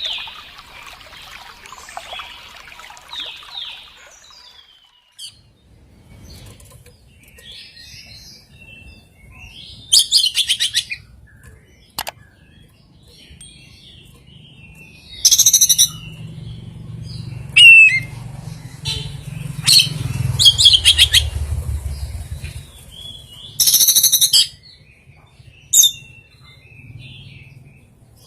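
Oriental magpie-robin (kacer) singing. Loud, short bursts of rapid repeated notes come every few seconds, with softer calls between them, and include mimicked fill-in phrases (isian). A low hum runs underneath from about six seconds in.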